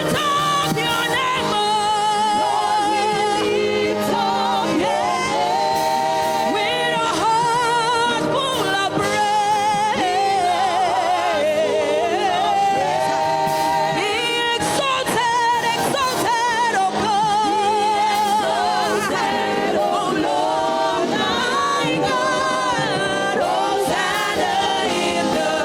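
Gospel music: a singer with heavy vibrato over steady held accompaniment.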